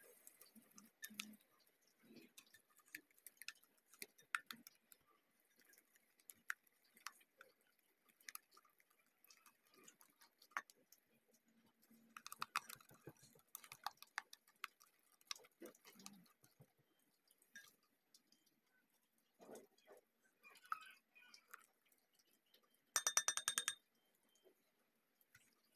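Whisk beating egg and sugar in a glass bowl: faint, irregular light ticks and taps of the whisk against the glass, busier about halfway through. Near the end, a short burst of rapid rattling clicks.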